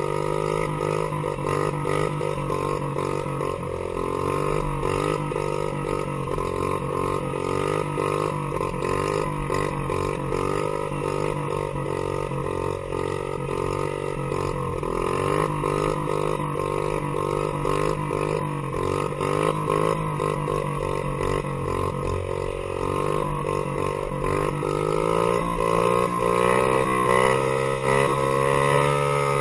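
Dirt bike engine running under way, its pitch repeatedly rising and falling with the throttle, then climbing higher over the last few seconds.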